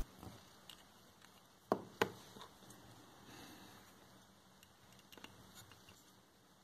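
Faint clicks and taps of small parts being handled: a brass tube and a small bearing in a 3D-printed plastic block. Two sharper clicks come close together about two seconds in, with a soft rustle a little later.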